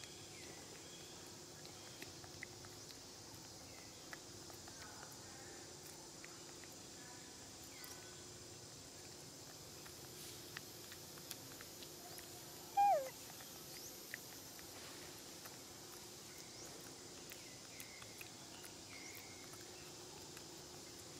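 Quiet outdoor ambience with a faint steady hum, light clicks and rustles of a young macaque handling and eating bananas, and one short call gliding downward about 13 seconds in.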